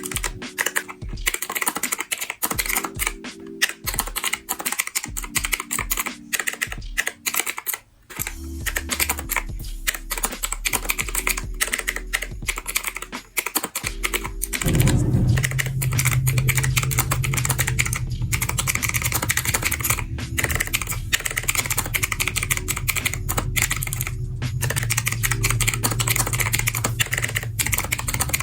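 Fast typing on a retro typewriter-style mechanical keyboard: a dense, continuous run of key clicks, over background music whose bass comes in about halfway.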